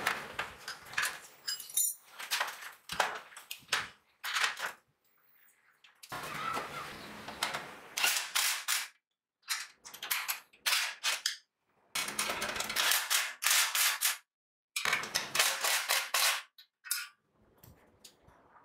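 Metalworking on a steel frame: clusters of short, sharp cracks and strikes, several a second, broken off abruptly by stretches of quiet.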